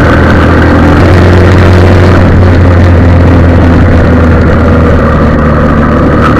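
Motorcycle engine running steadily at an even pitch while riding, picked up loud and close by a camera mounted on the bike, over a dense rushing noise.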